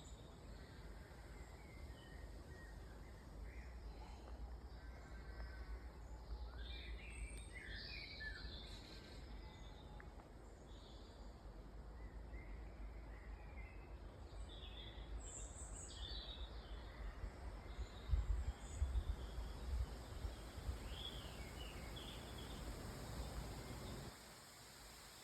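Woodland birds chirping and singing in short scattered phrases, over a low rumble of wind on the microphone that gusts loudest about three-quarters of the way through.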